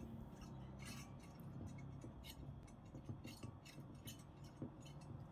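Faint scattered light taps and soft brushing of a wet silicone pastry brush against a glass baking dish.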